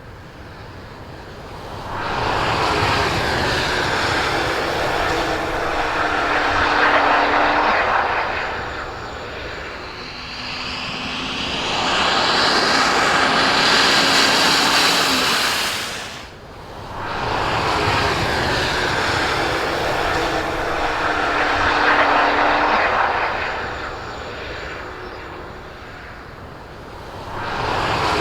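Loud rushing noise that swells up and dies away in long waves, the same pattern coming round twice about sixteen seconds apart, with a faint steady hum beneath the swells.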